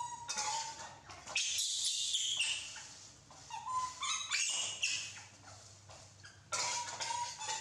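Young macaques giving short, high, squeaky calls, repeated in runs, while a metal spatula scrapes and stirs in a steel wok.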